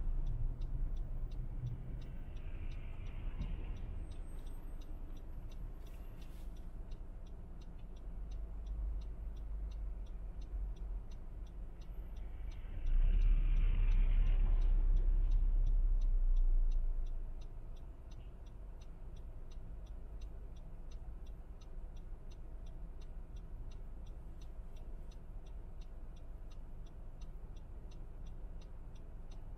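Car turn-signal indicator ticking steadily and evenly over the low rumble of the car idling in traffic. The rumble swells from a passing or moving vehicle about 13 to 17 seconds in.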